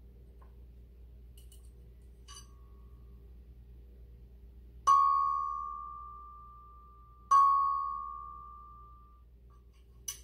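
A small handheld chime bar (single-note resonator bell) is struck with a mallet. One soft tap about two seconds in is followed by two firm strikes, about 5 and 7 seconds in. Each rings a single clear bell-like note that fades over about two seconds, and a few light taps come near the end.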